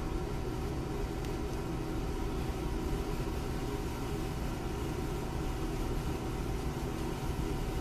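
A steady low mechanical hum, even in level and pitch throughout.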